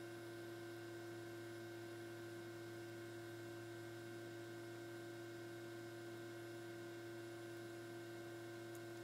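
Faint steady hum made of a few constant tones over a light hiss: room tone, with no distinct events.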